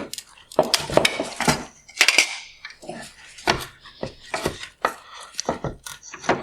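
Hard plastic headlight parts and wire harness connectors being handled during disassembly: an irregular run of clicks, knocks and light rattles.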